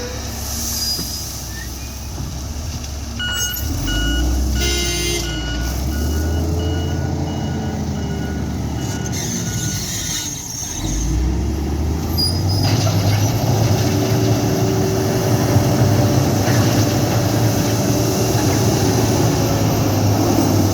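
Heavy diesel earthmoving machinery running, with a reversing alarm beeping repeatedly from about three seconds in to about ten seconds. Near the middle the engine revs up and runs louder under load.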